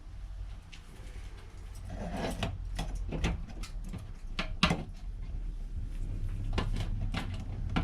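A run of sharp knocks and clatters, several in quick succession starting about two seconds in, the loudest just past the middle, with a few more near the end, over a low steady hum.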